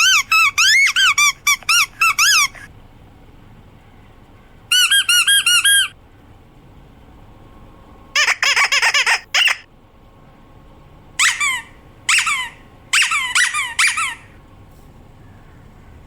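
Squeaky dog toy squeezed over and over in four bursts of quick, high-pitched squeaks, each squeak bending up and down in pitch.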